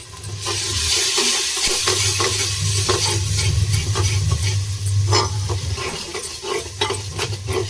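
Freshly added tomatoes and onions sizzling in hot oil in a pan, stirred with a spatula that scrapes and taps against the pan again and again. A low steady hum runs underneath.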